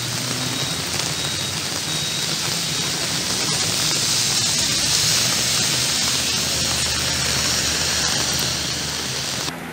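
Steady hiss of heavy rain and running floodwater, with a faint low hum underneath.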